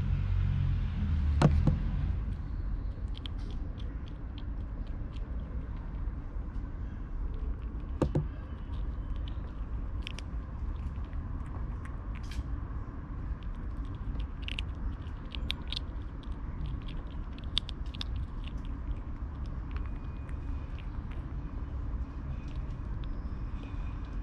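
Black kitten crunching dry kibble, heard as many small scattered clicks and crackles over a steady low rumble. Two sharper knocks stand out, about a second and a half in and again about eight seconds in.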